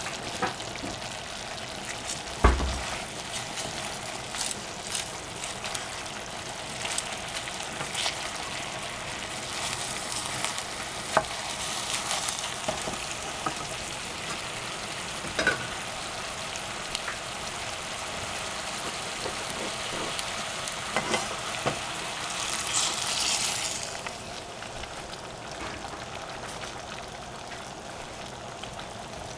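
Sliced squash and zucchini sizzling in a stainless steel saucepan on a gas burner, a steady hiss. A few sharp knocks come through, the loudest about two and a half seconds in. The hiss swells briefly near the end, then settles a little quieter.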